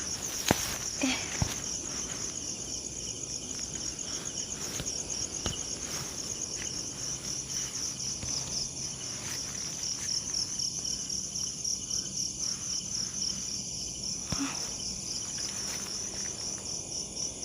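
Crickets chirping in a steady, fast pulsing high trill, with a few faint clicks, two of them about a second into it.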